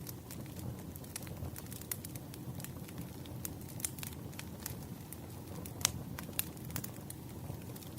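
Firewood burning, with irregular sharp crackles and pops over a steady low rumble; the loudest pop comes about six seconds in.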